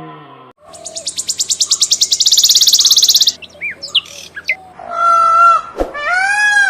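A bird gives a fast, high, pulsing trill of about ten notes a second for a few seconds, followed by a few short chirps. After that come two drawn-out calls that rise and fall in pitch, with a sharp click between them.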